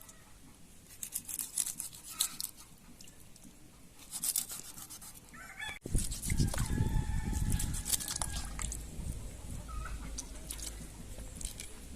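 A rooster crows once about six seconds in and chickens cluck, over a low rumble that starts at the same point; sharp light clicks come earlier.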